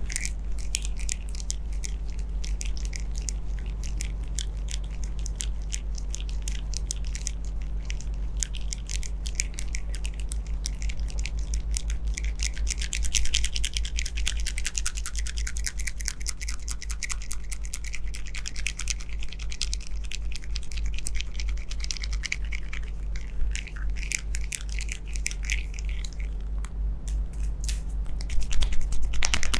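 Fingertips rubbing and scratching through short hair on the scalp and around the ear during a head massage: a dense run of fine crackling scratches, louder for a moment near the end, over a steady low hum.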